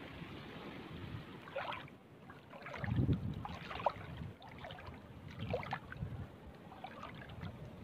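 Shallow seawater sloshing and splashing around a person's legs as they wade, in irregular swishes with small trickling splashes. The loudest surge comes about three seconds in.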